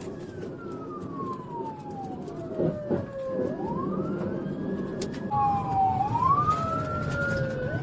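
Police car sirens wailing in slow falling and rising sweeps, with a second siren overlapping from about five seconds in, over steady vehicle and road noise.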